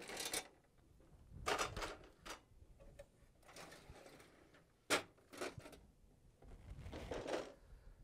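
Plastic paper tray of an HP laser printer being pulled out of its slot: several short sliding scrapes with sharp clicks as it comes free, the loudest click about five seconds in.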